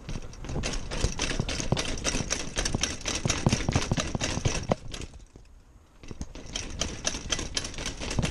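Mountain bike with a RockShox suspension fork rattling down concrete stairs: a fast clatter of knocks as the wheels jolt over the steps. The clatter eases for about a second halfway through, then starts again.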